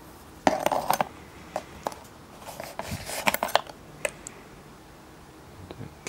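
Small metal parts and hand tools clinking and rattling against each other as a case of loose typewriter spare parts is rummaged through, in a few short bursts of clicks.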